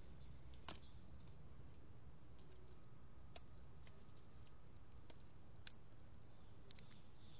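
Faint, scattered small clicks and taps at a backyard bird feeder, with a brief high chirp about a second and a half in, over a low steady hum.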